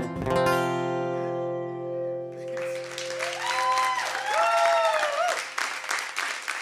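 Acoustic guitar strummed to a final chord that rings out, then stops about two and a half seconds in. Then an audience applauds and cheers, with a few whoops.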